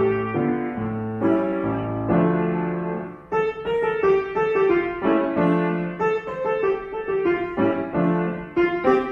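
Solo grand piano playing: chords over a repeating bass note for the first three seconds or so, a chord left to fade, then a livelier passage of short, quicker notes.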